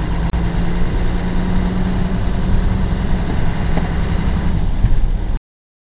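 Truck engine running with road noise, heard from inside the cab while driving: a steady low rumble that cuts off suddenly near the end.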